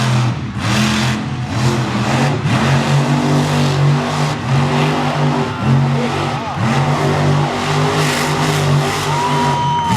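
Monster truck engine revving hard in repeated bursts, its pitch dropping off and climbing again several times over a constant loud rumble.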